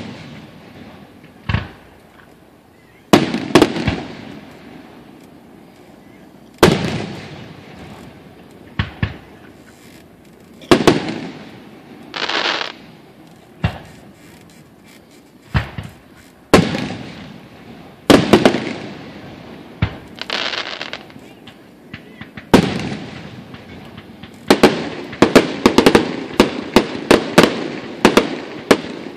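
Aerial fireworks shells bursting overhead, each a sharp bang followed by a trailing echo, coming a few seconds apart. Near the end the bursts come in a rapid string of reports.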